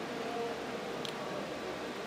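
Faint, steady room noise with a single light click about a second in; the nathaswarams and thavils are silent.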